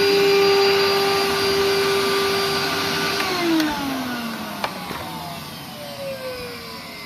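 Royal-made Dirt Devil 1100-watt canister vacuum's motor running with a steady whine, then switched off with a click about three seconds in. The whine falls in pitch and fades as the motor spins down.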